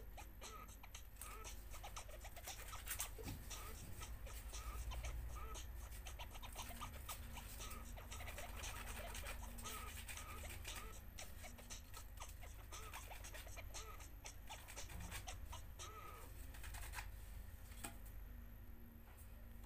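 Sandpaper scratching against a small plastic lure body carved from a toothbrush handle, in short dry strokes. A faint high chirp repeats about twice a second behind it.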